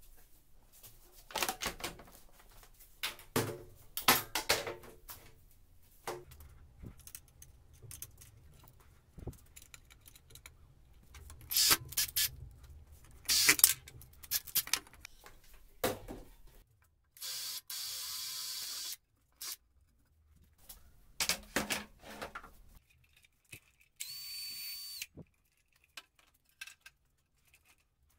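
Workshop assembly sounds: irregular knocks and clatter of metal parts being handled and set down. A small power drill runs twice, for about two seconds about two-thirds of the way through and for about one second with a steady whine near the end.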